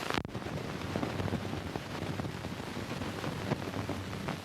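Steady hiss and crackle of an early optical film soundtrack running with no speech, with a sharp pop right at the start.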